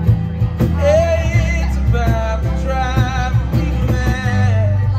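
Live slow acoustic country song: a man sings long held lines over strummed acoustic guitars and an electric bass.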